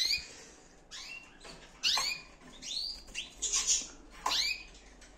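Domestic canaries chirping: short sweeping calls, about one every second.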